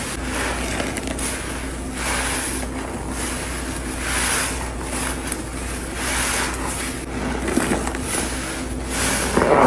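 Sponge soaked in sudsy pine cleaning solution being squeezed over and over, with a wet, squeaky squelch about every two seconds.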